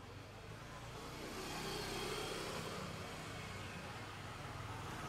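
A road vehicle passing by, its noise swelling to a peak about two seconds in and then slowly fading.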